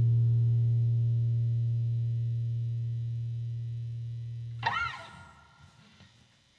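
The song's final guitar note ringing out and slowly fading, then stopped with a short squeak about two-thirds of the way through.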